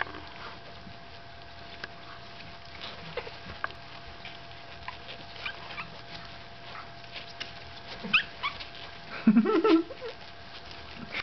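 Two-week-old Staffordshire Bull Terrier puppies whimpering and squeaking in short, scattered high cries. A louder cluster of whines comes about nine seconds in.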